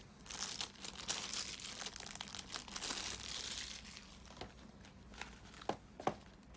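Black plastic blister tray crinkling and rustling as a 1/6 scale action figure is lifted out of it, followed by a few light clicks near the end.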